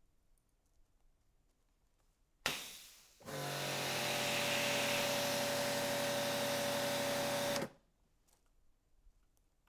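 Kärcher electric pressure washer: the trigger is squeezed and a sudden burst of spray comes out, then under a second later the pump motor cuts in with a steady hum under the hiss of the water jet hitting the mat. It runs for about four seconds and cuts off sharply when the trigger is let go.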